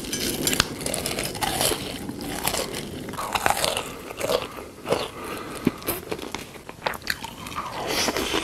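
Close-miked eating of crisp food: repeated irregular crunches of biting and chewing.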